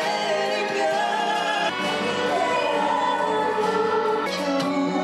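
A male and a female singer performing a slow ballad duet over soft backing music, with sustained, gliding vocal lines.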